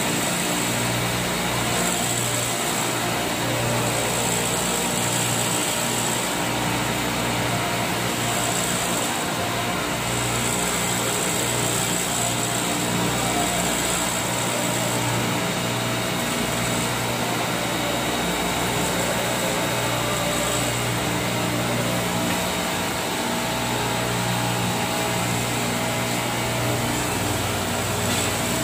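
Glass edge-grinding and polishing machine running steadily, grinding the edge of a mirror piece, with a constant hum and a high hiss.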